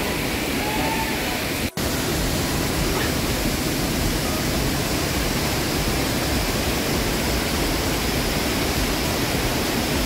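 Waterfall close by: a steady, dense rush of falling water with no change in level. It cuts out for an instant just under two seconds in.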